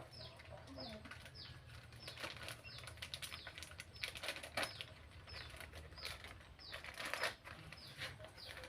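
A small bird chirps steadily, a short falling peep repeated about every half second, over scattered rustles and light knocks of kitchen handling.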